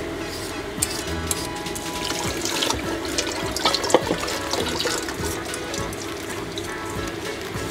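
Water running into a kitchen sink while potatoes are peeled, under soft background music; a cleaver knocks once on a wooden chopping board about four seconds in.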